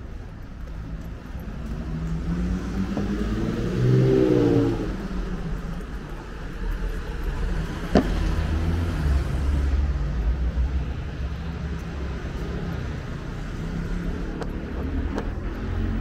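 Cars passing in street traffic. One car's engine rises in pitch as it accelerates past about four seconds in, and a low engine rumble follows. A single sharp click comes about eight seconds in.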